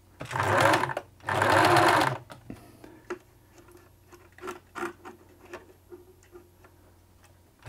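Singer Futura model 1000 electronic sewing machine running in two short bursts of under a second each. It is a good runner, though a bit noisy. Then come scattered light clicks as its selector buttons are pressed and its front dials turned, over a faint steady hum.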